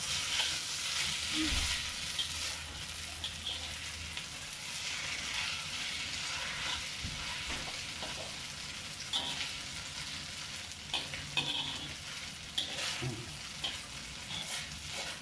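Glass noodles and vegetables sizzling steadily in a hot wok while being stir-fried, with a metal spatula scraping and tapping against the wok now and then, more often in the second half.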